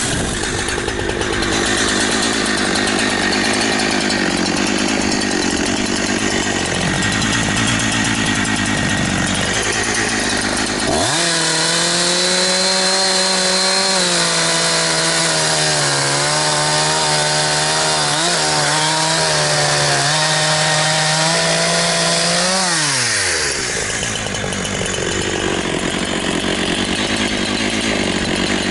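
Holzfforma G372 XP two-stroke chainsaw running hard, with a dense, noisy sound typical of the chain cutting wood. About eleven seconds in the revs climb to a high, slightly wavering steady scream for some ten seconds, then drop away and the noisy running resumes.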